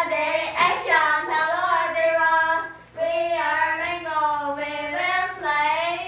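Young girls singing a short song together, in two sung phrases with a brief break about three seconds in. A single sharp click sounds under a second in.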